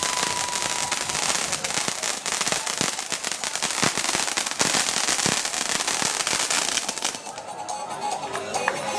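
Fireworks crackling: a dense, rapid run of small pops over a hissing sizzle, which dies down about seven seconds in.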